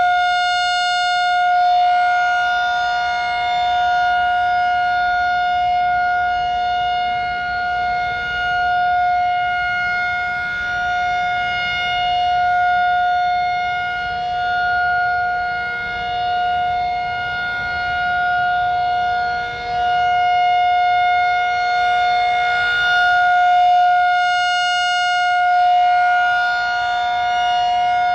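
1999 Federal Signal 2001-SRN rotating electromechanical tornado siren sounding its steady-tone Alert signal. It holds one pitch, swelling loudest as the turning horn faces the listener, near the start and again about 25 seconds in.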